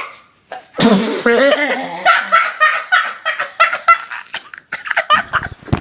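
A sudden loud, noisy outburst about a second in, followed by laughing in quick, repeated pulses.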